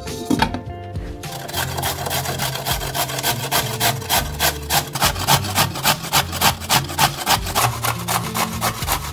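Carrot being grated on a stainless-steel box grater: steady, even rasping strokes, about three or four a second.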